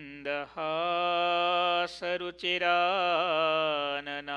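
A voice chanting a Sanskrit dhyana shloka in slow, drawn-out melodic phrases, holding long notes with a wavering ornament about three seconds in.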